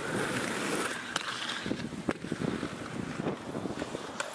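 Skateboard wheels rolling over pavement with a steady rumble and wind buffeting the microphone, broken by a few sharp clacks of the board.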